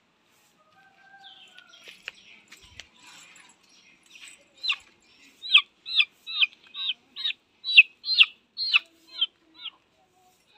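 A white chicken calling over and over: a run of loud, high, sharp cries, about two a second, starting about halfway through, after faint rustling and a click on the dirt. The bird is down on the ground flapping, and the calls are typical of a chicken in distress.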